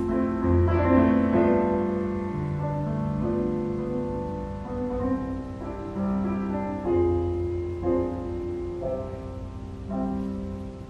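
Solo piano playing slow ballet class accompaniment, with held notes and chords changing about once a second.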